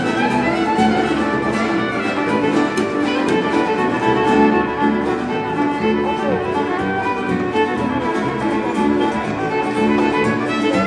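Live Celtic folk band playing a tune: fiddle over acoustic guitar and upright bass.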